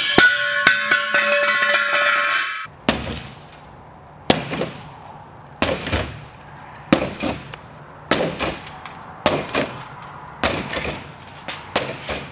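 A push broom swung again and again into a Volkswagen Beetle's window glass: about eight sharp strikes a little over a second apart, the glass cracking and clattering. It opens with a couple of seconds of ringing, clinking sound that stops abruptly.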